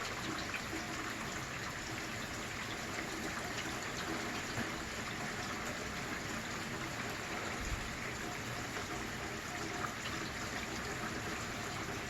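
Steady rain from a thunderstorm: an even hiss of falling water with scattered drop ticks.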